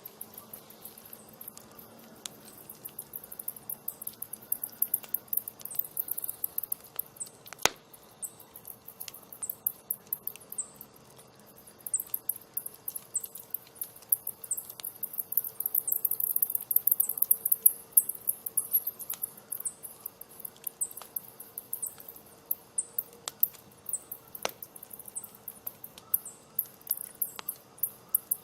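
Campfire crackling, with scattered sharp pops, under the constant high-pitched chirping of crickets.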